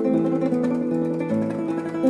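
Background music: an acoustic guitar playing a melody of held notes that change about every half second to a second.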